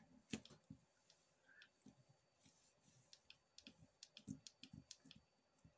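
Faint, scattered clicks and taps of fingers squaring up and pressing a stack of polymer clay sheets on a cutting mat, with a quicker run of taps about four seconds in.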